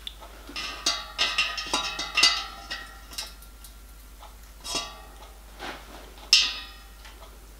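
Steel open-ended spanners clinking and ringing against each other and a boiler stay fitting as it is tightened: a quick run of metallic clinks in the first three seconds, then a few single clinks, the sharpest about six seconds in.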